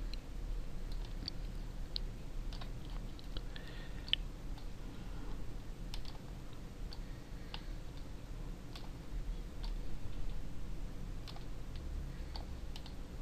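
Computer mouse button clicking at irregular intervals as items are picked up and dropped, over a faint low hum.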